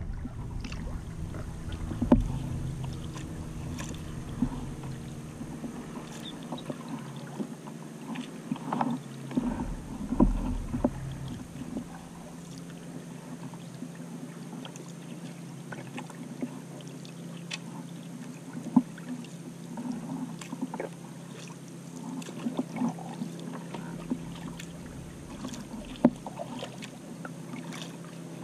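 Kayak paddling: water splashing and dripping from the paddle strokes over a steady low hum of water and air, with a few sharper knocks.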